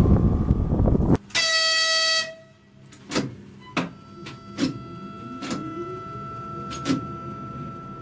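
Rushing noise of a ČD class 380 electric locomotive on the move, cut off sharply after about a second; then a single blast of about a second on the locomotive's horn as a greeting. After that, sharp clicks from about once a second as the driver works the cab's controller levers, over a steady high tone.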